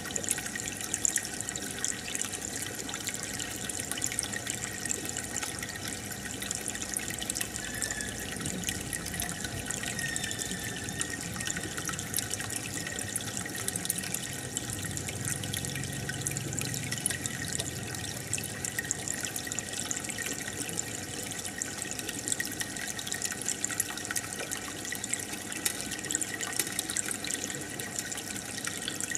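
Aquarium filter returning water into the tank, a steady trickling and bubbling with many tiny pops.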